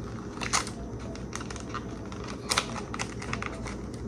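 Scattered light clicks and clatter of small objects being handled, with two sharper knocks, one about half a second in and one about two and a half seconds in, over a steady low hum.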